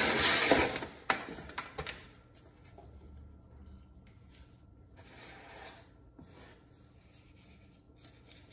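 Hand sanding with a sanding block along the edge of a wooden boat seat base: fast rubbing strokes for the first second or two, then only faint, scattered scrapes.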